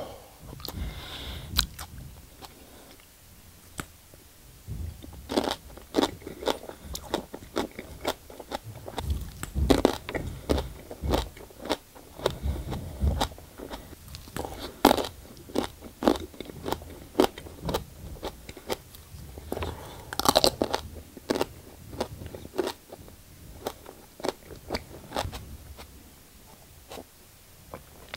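Raw aloe leaf being bitten and chewed: many short, irregular crunches and clicks of the leaf breaking between the teeth.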